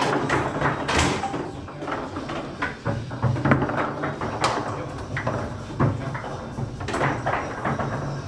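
Foosball table play: the ball being struck by the rod men and knocking against the walls and figures, with rods sliding and clacking, in irregular sharp knocks over a steady background hum.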